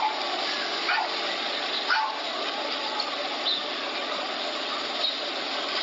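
Steady rushing noise, with a few brief sharp sounds about one and two seconds in.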